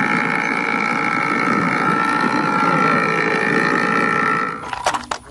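Bajaj auto-rickshaw engine sound, running steadily with a held high tone over it, stopping about four and a half seconds in, followed by a couple of short sharp clicks.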